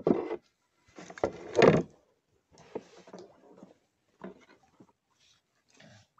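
Irregular knocks and scrapes on a small boat's hull, loudest about a second and a half in, then a few softer ones.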